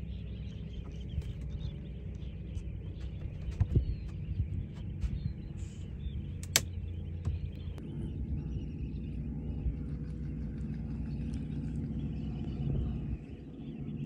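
Steady low rumble of a small boat's motor under wind and water noise, with a few sharp clicks, the loudest about halfway through.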